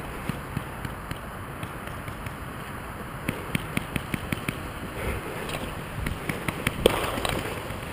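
Paintball markers firing: a quick string of sharp pops about halfway through and a single louder crack near the end, over the rustle of grass brushing past the camera.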